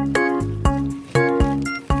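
Background music with a steady beat, about two beats a second, over a bass line and bright pitched notes.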